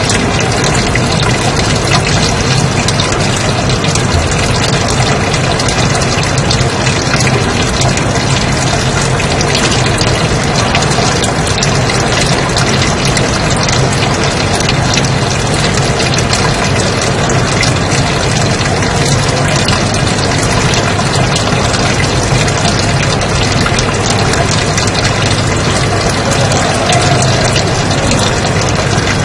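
Steady white noise: an even, unbroken hiss across the whole range.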